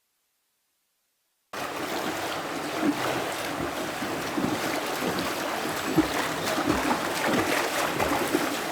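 After about a second and a half of dead silence, a steady rush of moving floodwater begins, with small splashes and knocks through it.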